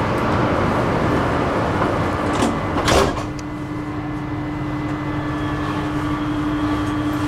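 Interior of a Prague metro car: a dense running rumble, then two clunks about three seconds in. After them the rumble drops away and a quieter, steady electrical hum remains as the car stands at the platform.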